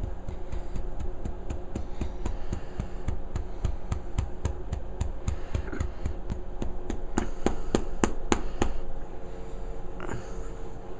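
Newfoundland dog making a long, irregular series of sharp clicks in her throat, a few a second, loudest about two-thirds of the way in: the sounds her owner takes for her working to get burps out. A steady faint hum runs behind.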